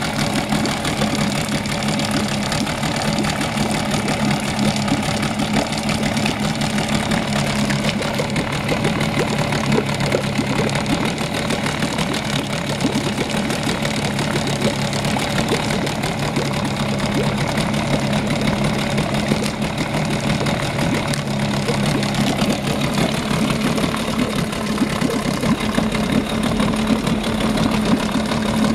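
Mercury 9.8 Sea Pro two-stroke outboard idling steadily with its lower unit in a tub of water, the water churning and bubbling around the leg.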